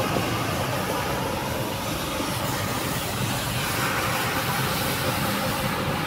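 Metro single-disc rotary floor machine running steadily, its motor humming and its rotary bristle brush scrubbing foamy shampoo into wet carpet.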